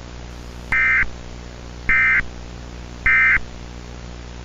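Three short bursts of Emergency Alert System SAME data tones, a warbling buzz evenly spaced about a second apart. This is the end-of-message signal that closes an alert. A steady static hiss and hum runs underneath.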